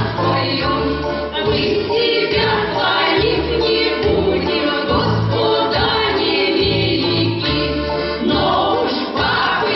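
Folk choir of several voices singing with instrumental accompaniment over a steady bass beat.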